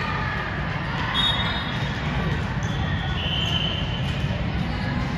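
Sneakers squeaking on a gym court floor, a few short squeals, over a steady low rumble and background crowd voices.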